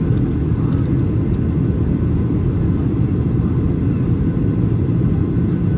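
Steady low rumble inside the cabin of a Boeing 737-800 in flight on approach, the noise of its CFM56 jet engines and the airflow over the fuselage.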